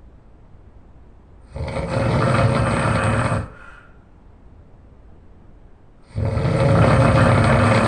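A person snoring loudly: two long, rattling snores of about two seconds each, one starting about a second and a half in and the next near the end, with a pause between.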